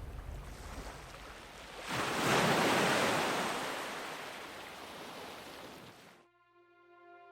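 Volcanic eruption sound effect: a fading rumble, then a sudden loud rushing blast about two seconds in that slowly dies away. It cuts off abruptly near the end, and soft music with long held notes begins.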